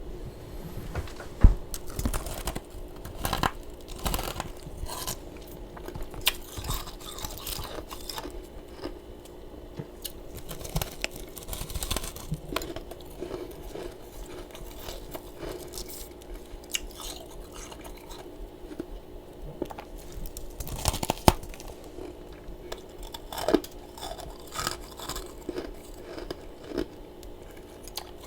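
Close-miked mouth crunching and chewing of powdery humidifier freezer frost, in irregular bites and crunches, with a sharp louder crunch about a second and a half in and another about twenty seconds in. A steady low hum runs underneath.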